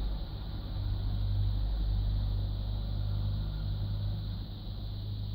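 A steady low hum, with no distinct events.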